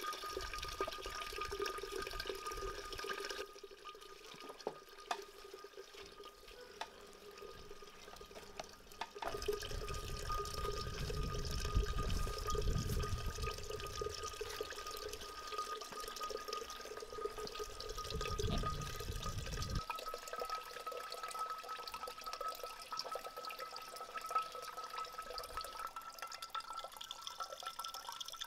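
Fermented berry juice trickling and dripping in a thin stream from the spout of an old wooden basket press into a ceramic jug.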